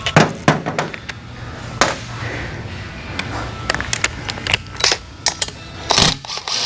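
A string of irregular sharp metallic clicks and clinks: tools and fasteners being handled while a Harley Twin Cam engine is unbolted during teardown, with a low steady hum behind. The clicks bunch together about six seconds in.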